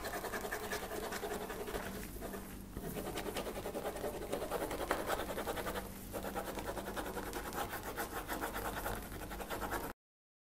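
Folded sheet of plain paper being rubbed hard by hand against a tabletop, a quick run of repeated scratching strokes that burnish the back of the sheet to transfer a pencil design to the other half. The strokes ease off briefly about two and a half and six seconds in, and stop abruptly near the end.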